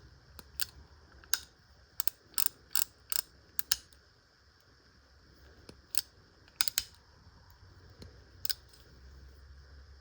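Sharp metallic clicks from a Hopkins Allen XL No. 3 spur-trigger .32 revolver's action being worked by hand: a quick run of clicks in the first four seconds, then a few more, some in close pairs, around six and eight and a half seconds in.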